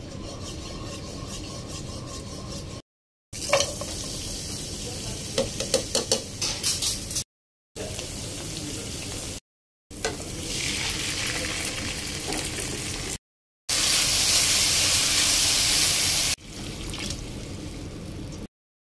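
Ghee and oil frying in a pot, with chopped onion sizzling and a spatula stirring and tapping against the pot. The sound comes in short clips cut apart by sudden silences; the loudest stretch is a steady sizzle about two-thirds of the way through.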